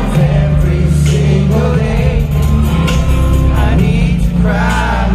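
Live pop band performance: male voices singing over the band's accompaniment, with heavy bass, heard from the audience in a concert hall.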